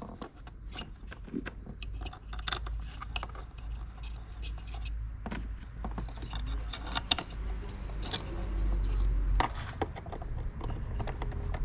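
Irregular small clicks, scrapes and rattles of parts and hand tools being handled in a car's engine bay while a cleaned mass airflow sensor is fitted back, over a steady low rumble.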